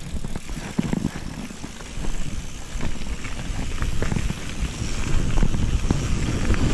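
Mountain bike rolling fast down a gravel road: tyre noise on the gravel and the bike rattling over bumps, with wind rumble on the camera microphone, getting louder toward the end as speed builds.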